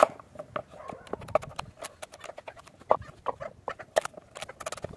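Chef's knife slicing a raw carrot on a bamboo cutting board: a sharp knock each time the blade goes through and hits the board, at an uneven pace of a few a second.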